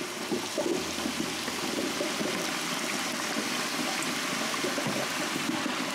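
Fresh-cut raw potato fries frying in a basket of hot oil in a deep fryer: steady, vigorous bubbling and sizzling as the water in the potatoes boils off.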